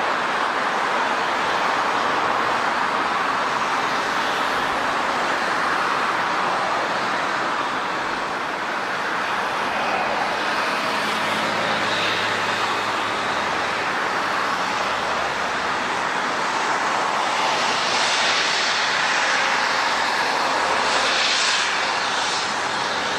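Airliner engines running with a steady, loud rush, which grows brighter and hissier for a few seconds near the end.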